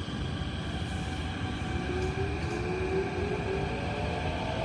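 SMRT CT251 metro train heard from inside the car as it pulls away from a station: over a steady rumble, the traction motors' whine sets in about two seconds in and rises in pitch as the train accelerates.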